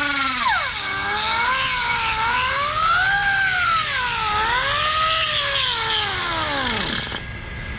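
Hand-held grinder, most likely an angle grinder, grinding metal: its whine dips and rises as it is pressed into the work and eased off, over a rasping hiss. Near the end it is switched off and the whine falls away as it spins down.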